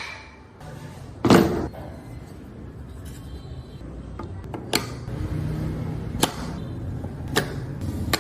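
Carving work on wood: one heavy knock with a short scrape about a second in, then three sharp taps spaced a second or so apart.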